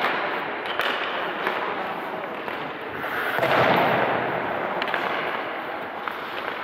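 Ice hockey goalie practice on a rink: skate blades scraping the ice, with a longer scrape about three and a half seconds in, and a few sharp cracks of pucks striking.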